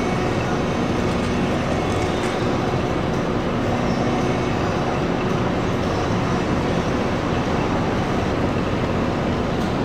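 Steady city street traffic noise with the hum of engines running, a bus or truck among them.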